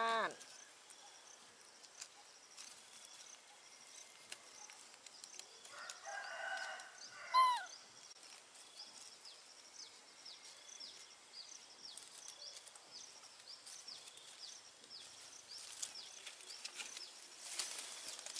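Outdoor animal calls: a short call at the start, then a longer call about six seconds in that ends in a sharp, loud cry. Small birds chirp faintly throughout, and leaves rustle near the end.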